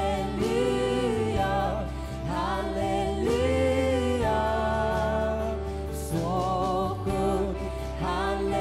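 Live worship music: a band playing a slow song, with a wavering sung melody over sustained low bass notes.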